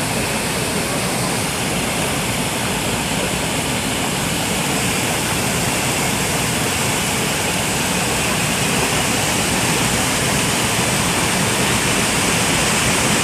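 Bubble washing machine for cabbage running: a steady rush of churning, bubbling water, getting slightly louder toward the end.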